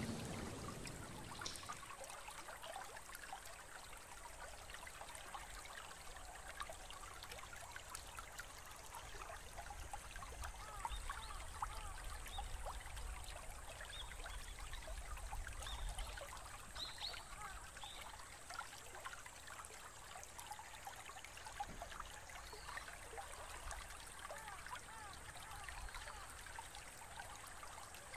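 Faint trickling, bubbling water, like a small stream. The tail of a sung chant fades out about a second in.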